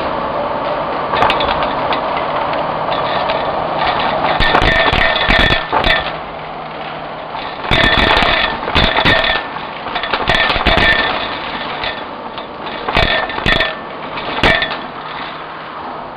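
Vacuum cleaner running steadily through a crevice tool, with three spells of crunching and rattling as foil confetti and plastic beads are sucked up the tube.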